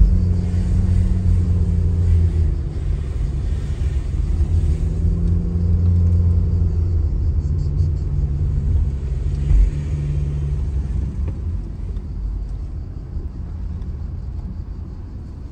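Car in motion: a loud, low rumble of engine and road noise, with its pitch shifting slightly and easing off somewhat near the end.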